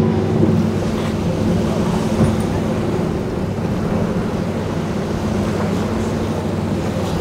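Motorboat engines running steadily, a constant hum over a wash of noise.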